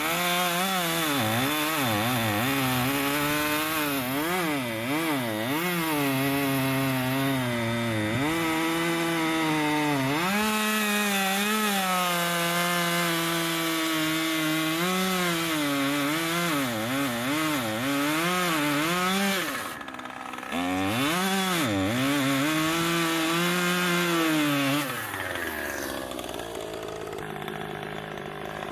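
Chainsaw cutting white oak at full throttle, its pitch repeatedly dipping and recovering as the chain bogs in the wood. The throttle eases off briefly partway through, then it cuts again before dropping back to a lower, quieter running near the end.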